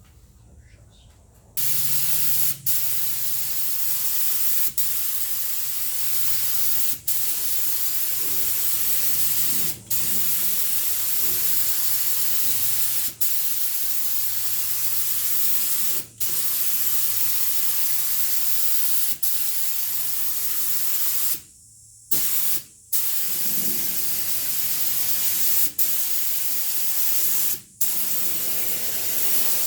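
Compressed-air paint spray gun spraying sandable primer. A loud, steady hiss starts about a second and a half in and is broken by short pauses every two to three seconds, with a longer stop about two-thirds of the way through.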